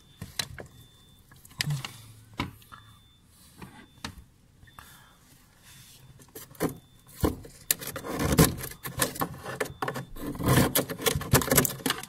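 Irregular rubbing and scraping with small clicks inside a refrigerator compartment, as the iced-up drain area behind the back grille is worked at. Sparse at first, it becomes dense and busy about halfway through.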